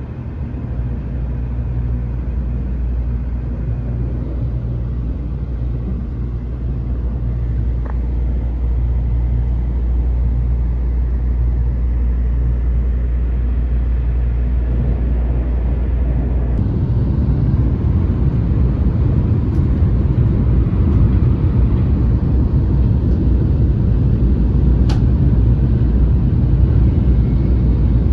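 Cabin noise of a Shinkansen train running at speed: a steady low rumble of wheels on rail, which grows louder and rougher about sixteen seconds in.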